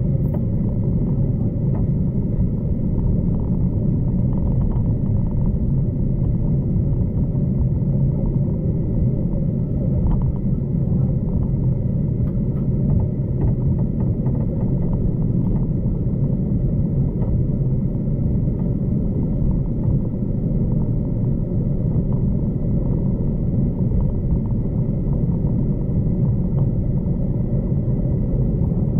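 Steady low rumble of a V/Line passenger train running at speed, heard from inside the carriage, with a faint steady whine above it.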